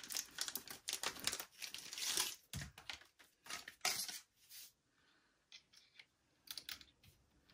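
Plastic packaging being torn open and crinkled, a dense run of quick rustles for about four and a half seconds, then a few light clicks.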